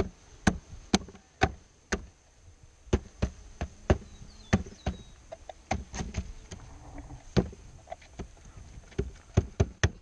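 A wooden bee package being knocked and shaken over an open hive to tip the bees in. It gives about twenty sharp, uneven knocks, roughly two a second, with short clusters near the middle and near the end.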